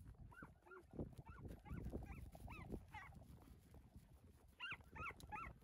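A dog yipping faintly: a quick run of short, high yips, each rising then falling in pitch, two or three a second, then a second short run near the end.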